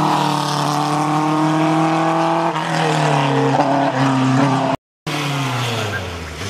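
Open-wheel single-seater racing car's engine running hard at high revs as it passes close by and climbs away. The note steps down in pitch about halfway through, cuts out briefly near the end, then falls away.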